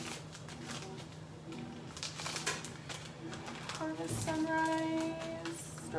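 Plastic drink-mix stick packets rustling and crinkling as they are pulled from the clear plastic pockets of a hanging door organizer. About four seconds in, a voice holds one note for under two seconds.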